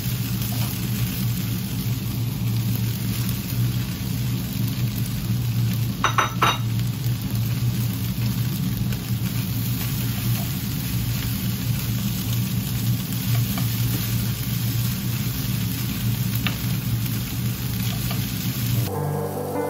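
Rice noodles and vegetables sizzling in a nonstick pan as they are tossed with chopsticks, over a steady low hum. A short clink comes about six seconds in, and music starts near the end.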